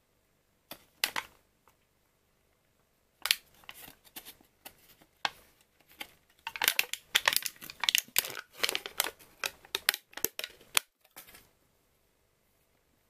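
Foil lid of a plastic dessert cup crinkling and tearing as it is peeled off and crumpled. A few sharp crackles about a second in, then dense, uneven crinkling for about eight seconds that stops near the end.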